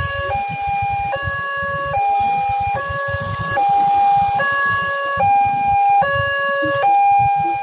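Electronic two-tone hi-lo siren, switching between a high and a low note about every 0.8 seconds, steady and loud.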